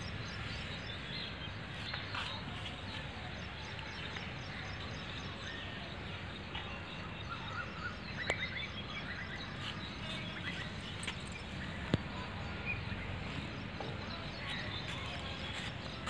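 Outdoor ambience: a steady background hum with birds chirping faintly now and then, and a couple of sharp clicks.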